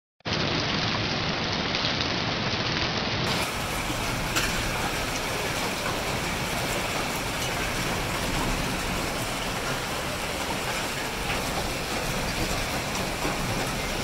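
Hailstorm: heavy rain and hail falling, a steady hiss with a few sharp ticks of hailstones striking.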